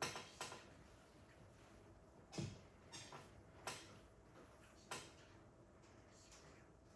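A handful of faint, sharp clicks and knocks, about seven in the first five seconds; the loudest, about two and a half seconds in, has a low thud. Between them there is near-silent room tone.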